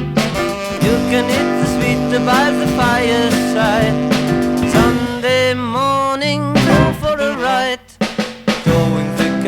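1960s beat band playing an instrumental passage: sustained organ chords, a wavering melody line over them, bass and drums. The music breaks off for a moment just before the end and then starts again.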